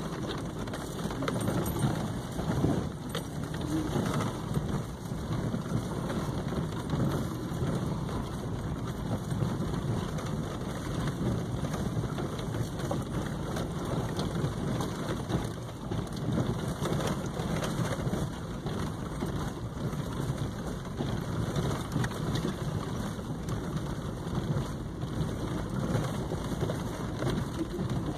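A vehicle rolling slowly along a dirt and gravel track: steady crackling and crunching of the tyres over dirt and stones, with a low rumble underneath.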